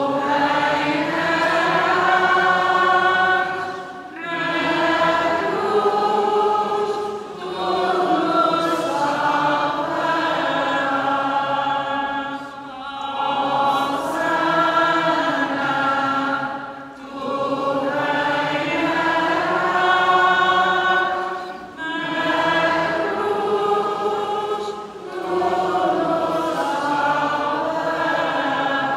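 A choir singing a slow chant in long, held phrases of a few seconds each, with brief pauses for breath between them.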